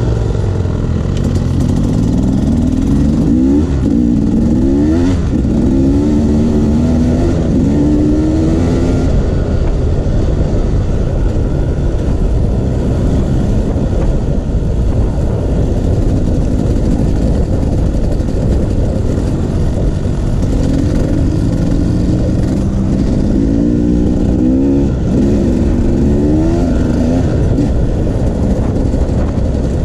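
Dirt bike engine running on a trail ride, revving up through a series of rising pulls a few seconds in and again about two-thirds of the way through, over a constant low rumble.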